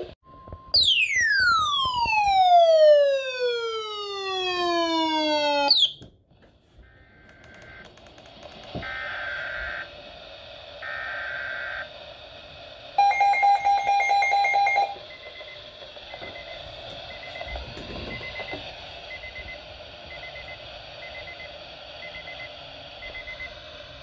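Electronic alarm tones: a loud tone falls steadily in pitch for about five seconds, then a few held beeps, a fast burst of beeping about halfway through, and a faint short beep repeating steadily after that.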